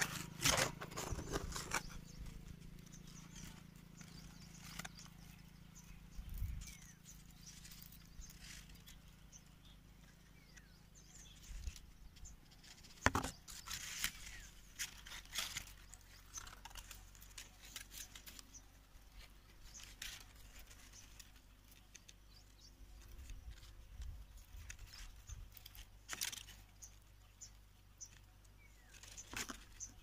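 Faint, scattered rustling and crackling of leaves and twigs as branches around a nest are handled, with a few sharper clicks.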